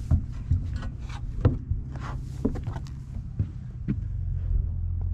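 Footsteps and knocks as someone climbs off a boat's front deck onto a dock: about six dull thumps, irregularly spaced, over a steady low rumble.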